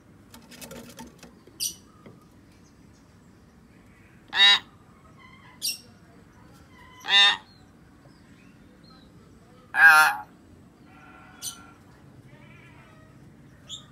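Common hill myna calling: three loud, short calls spaced a few seconds apart, with brief high notes and soft chattering in between.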